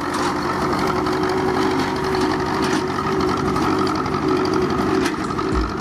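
Ursus C-360 tractor's four-cylinder diesel running steadily as the tractor pulls away under throttle while the engine is still cold.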